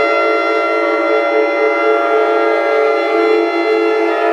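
Shofar (ram's horn) sounding one long, loud, steady blast held at a single pitch.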